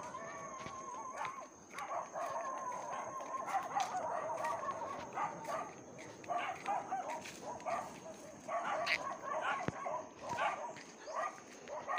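An animal whining: long wavering calls in the first half, then a run of short, repeated calls. A thin steady high tone runs underneath.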